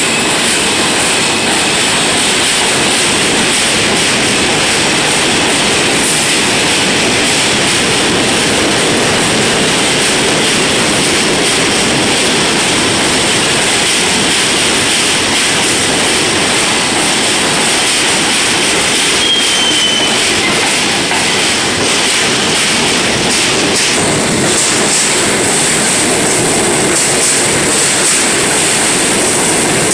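New York City Subway train of R160 cars running past the platform: a loud, steady rumble of steel wheels on the rails.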